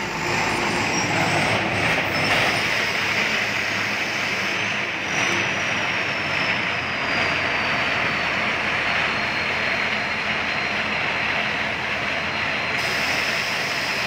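Crawler combine harvester driving past, its engine and machinery running with a steady, loud mechanical noise. A faint high whine drifts slowly down in pitch midway through.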